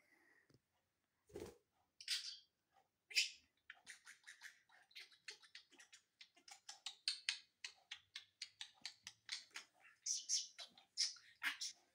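Budgerigar chattering: a fast, busy run of short clicks and chirps that starts in earnest about four seconds in and keeps going. There is a soft thump about a second and a half in.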